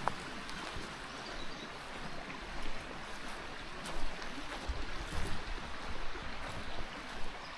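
Steady rush of running water, like a mountain stream, with a few light knocks scattered through.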